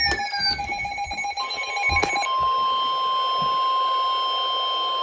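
Emergency Alert System tones playing from radio receivers. Overlapping, stuttering alert tones give way about two seconds in to one steady, unbroken attention tone, the signal that the spoken warning is about to follow.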